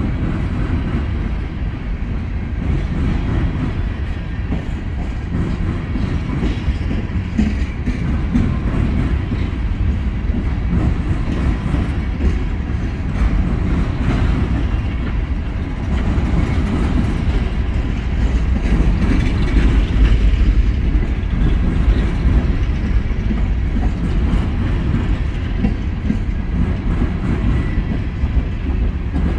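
Coal hopper cars of a freight train rolling past on the rails: a steady low rumble of steel wheels on track, swelling a little past the middle.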